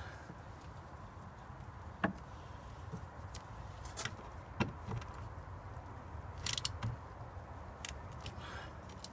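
Scattered light clicks and a few sharper taps from a small hand ratchet with a Torx bit, turning a screw by hand, over a low steady hum.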